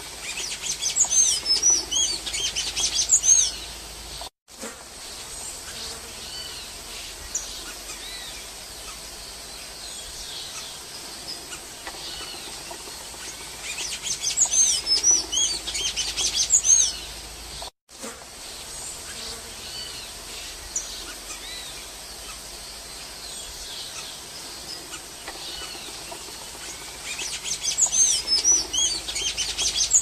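Golden-chevroned tanager singing: three bouts of rapid, high, squeaky twittering, each about three seconds long, coming roughly every thirteen seconds, with faint scattered bird notes in between.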